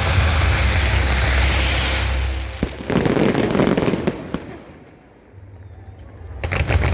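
Fireworks bursting and crackling in a dense rumble and hiss that dies away about halfway through, then sharp crackles start again near the end.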